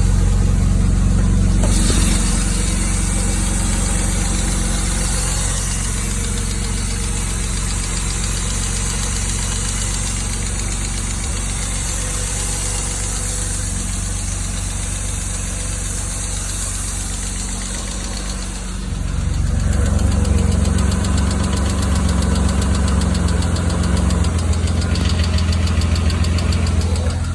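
BMW E36 engine running with a rapid, regular knocking and ticking. About two-thirds of the way through it gets louder and deeper.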